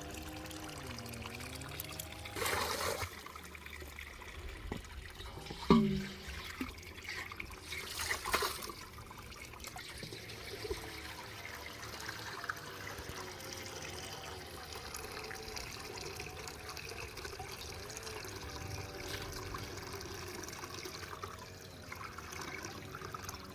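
Spring water trickling and running steadily, with louder splashing about two and a half and eight seconds in. A short, sharp sound falls in pitch about six seconds in.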